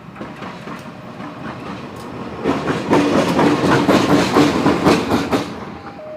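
A train passing close by, its wheels clacking rapidly over the rail joints. The noise builds, is loudest for about three seconds in the middle, then fades.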